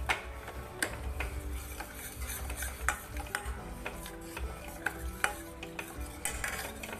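Steel ladle stirring and scraping thick roasted gram flour in ghee around a stainless steel pan, with irregular sharp clinks of metal against metal.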